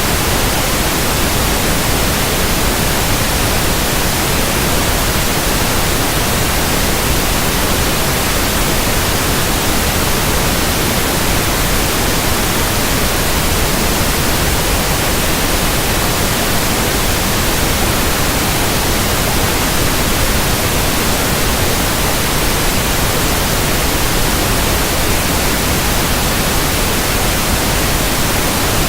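Pink noise speaker test signal: a steady, even hiss spread across the whole range, holding one level throughout.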